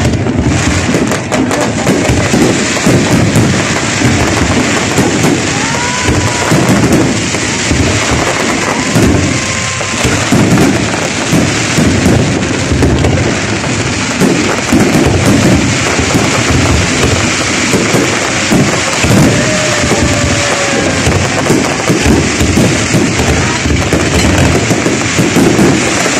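Aerial fireworks display: a continuous barrage of shells bursting, dense overlapping bangs and crackling with a low rumble underneath.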